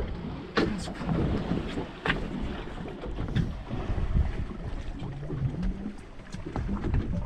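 Wind buffeting the microphone on a small fishing boat at sea, with water washing around the hull and a few sharp knocks.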